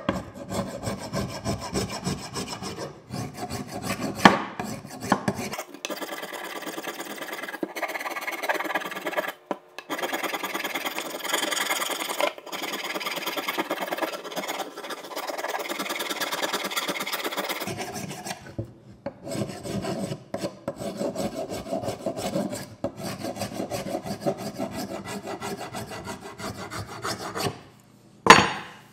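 A hand file scraping back and forth over the head end of a wooden axe handle in quick, repeated strokes with short pauses, shaping the wood to fit the axe head's eye. Two sharp knocks, one about four seconds in and a louder one near the end.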